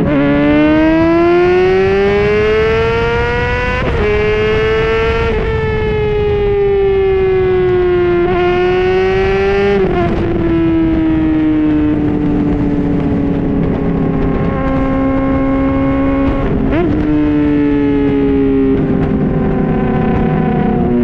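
2010 Honda CBR600RR inline-four engine through a Yoshimura slip-on exhaust, ridden hard. The revs climb and fall, with sudden drops in pitch at gear changes about four and ten seconds in and a short rise in pitch near the end.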